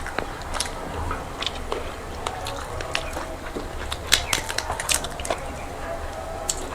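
Close-up eating sounds of a meal of rice and curry: chewing and lip smacking, with scattered sharp wet clicks, the loudest about four seconds in.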